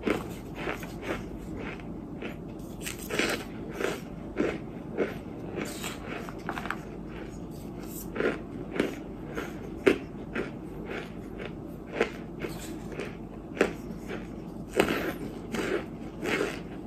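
Close-up crunching and chewing of chunks of white dirt (kaolin clay), with a pink plastic spoon scraping through the powder in the tray. Short crunches come irregularly, about one or two a second.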